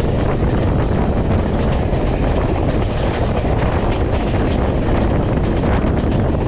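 Steady wind rushing over the microphone mixed with the low rumble of a moving passenger train.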